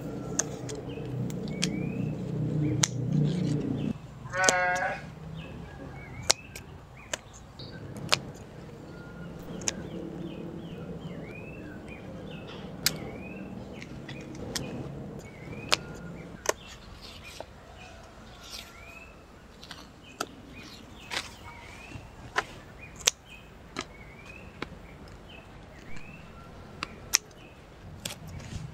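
Scissors snipping through turkey berry stems, sharp clicks every second or two, over repeated short bird chirps. A low, drawn-out animal call fills the first four seconds, and a quick falling trill sounds about four and a half seconds in.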